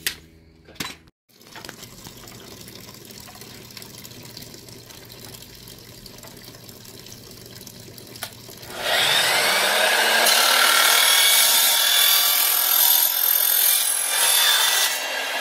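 Electric miter saw spinning up about nine seconds in and cutting through a white screen-door bottom-plate channel, a loud, harsh, high-pitched cut lasting about six seconds.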